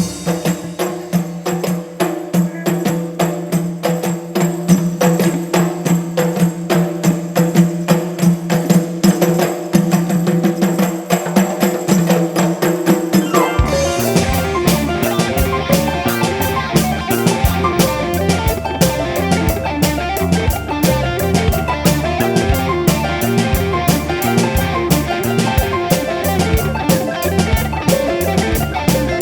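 A live ensemble plays music with drums and other percussion over held tones. About halfway through, a deep bass part comes in and the playing turns denser, with fast repeated strikes.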